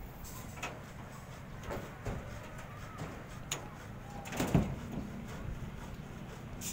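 A few scattered light clicks and knocks of steel rebar and tie wire as the stair reinforcement mesh is tied by hand, over steady low background noise; the loudest knock comes about two-thirds of the way in.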